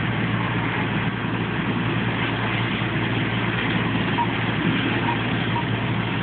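Fire engine running steadily, its engine holding a constant low hum, with an even hiss over it.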